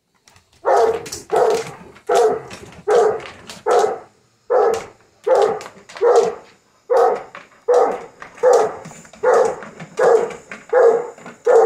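Dog barking in a long, steady run of loud barks, about one every three-quarters of a second, some coming in quick pairs, starting just under a second in: excited barking at an RC truck outside.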